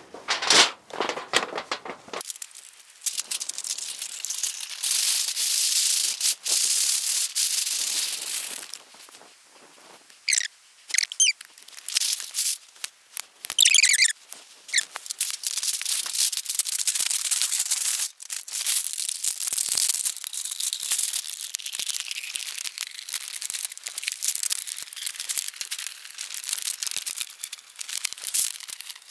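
A flexible stove-pipe strip of thin sheet metal being handled with gloved hands and rolled into a tube: long stretches of hissy metal scraping and rubbing, with a few short squeaks about halfway through.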